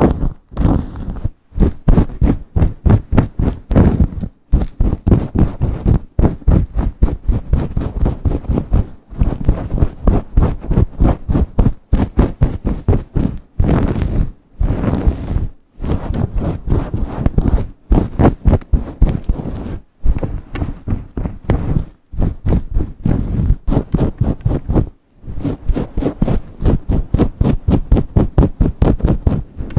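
Long nails scratching fast and hard through hair against the scalp: quick scratchy strokes, many a second, broken by short pauses every couple of seconds.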